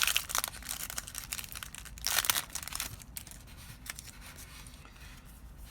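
A foil booster pack wrapper being torn open and crinkled by hand, a crackly rustle with a louder tearing burst about two seconds in, dying away after about three seconds.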